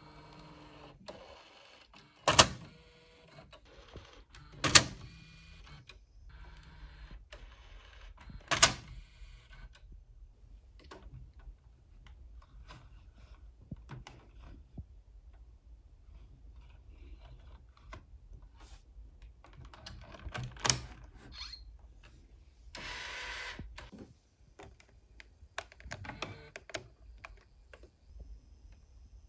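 Plastic clicks and snaps from a JVC VHS-C camcorder being handled, its cassette compartment and controls worked by hand. Three sharp loud clicks come in the first nine seconds and another about twenty seconds in, with a short rushing noise soon after and softer clicks scattered between.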